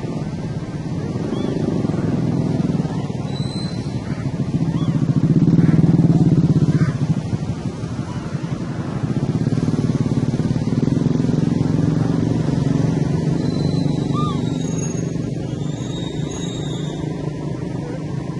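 Motorcycle engines running, a low, steady rumble that swells louder about a third of the way in and again past the middle, as bikes pass. A few short, high chirps sound faintly over it.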